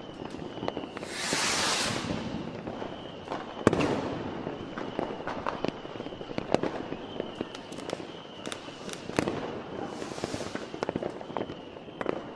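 Fireworks going off: scattered sharp bangs and pops, with a hissing burst about a second in and another about ten seconds in. The loudest bang comes a little under four seconds in.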